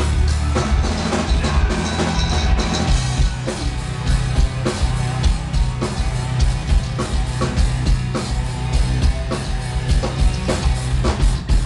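Gothic metal band playing live at full volume: dense, rapid drum hits over heavy low guitar and bass.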